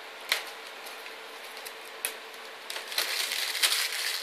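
Plastic packaging being handled: a couple of sharp clicks, then crinkling and rustling that grows busier over the last second and a half.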